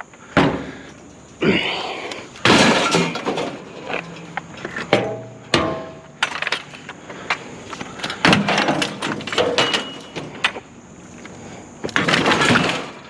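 Scrap and junk being thrown onto a load: a string of about half a dozen loud crashes and clatters, one with a brief ringing tone about halfway through.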